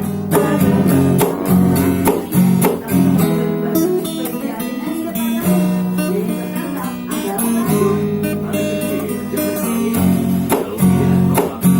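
Instrumental break of a song: music with a steady beat and no singing.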